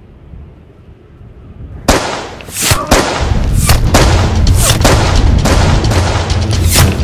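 A single sharp gunshot crack from a sniper's rifle about two seconds in. It is followed by a loud, dense stretch of repeated sharp hits over a low rumble, more shots mixed with heavy percussive film score.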